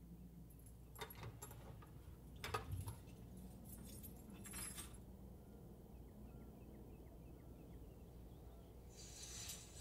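A bunch of keys jangling and clinking in a few short clusters as it is handled and set down on a wooden dresser top, followed by a brief rustling hiss near the end.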